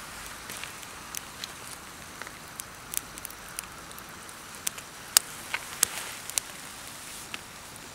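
Firewood burning in a campfire, crackling with irregular sharp pops over a soft steady hiss.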